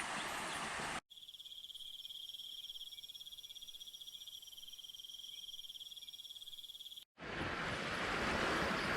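Insects trilling: a steady, high-pitched, fast-pulsing chorus lasting about six seconds, starting and stopping abruptly. Before and after it, a steady rushing hiss.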